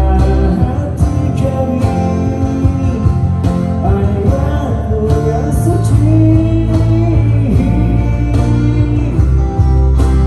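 Live band music: guitars and bass under a sustained melody line that bends between notes, with regular drum hits.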